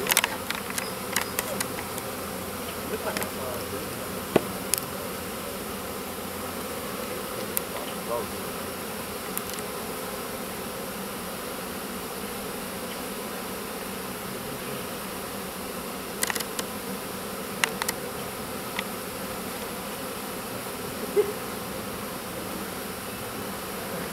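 Honeybee swarm buzzing, a steady many-insect drone, as the swarm clusters on a hive box. A few brief sharp clicks stand out, mostly near the start and again about two-thirds through.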